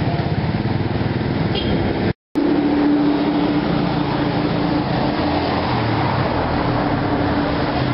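Road traffic: a motor vehicle engine running steadily, with traffic noise around it. The sound drops out completely for a moment about two seconds in.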